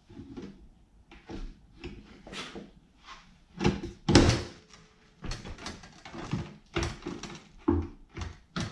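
Black plastic stretch wrap being handled and pulled at while unwrapping a shipped engine: irregular rustling and crinkling with scattered knocks, loudest about four seconds in.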